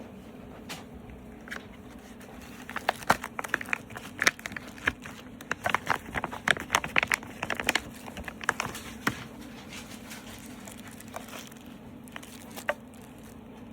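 Packaging being handled, with a quick run of crinkles and sharp clicks starting about two and a half seconds in, busiest in the middle and thinning out by about nine seconds, then a few stray clicks.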